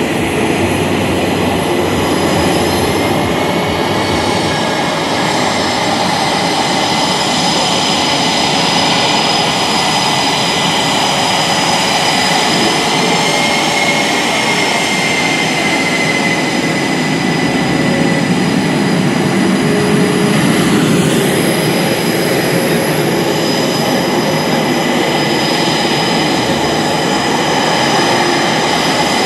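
F/A-18E/F Super Hornets' twin General Electric F414 turbofans running at taxi power as the jets roll past: a steady high-pitched whine over a rushing roar, wavering slightly in pitch as each jet passes.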